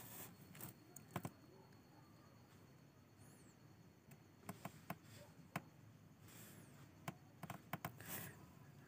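Near silence: faint room tone with a dozen or so short, faint clicks and taps scattered through it, most of them near the end.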